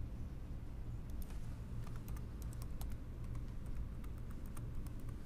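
Typing on a computer keyboard: a run of quick, separate key clicks starting about a second in, as a user name and password are entered, over a steady low hum.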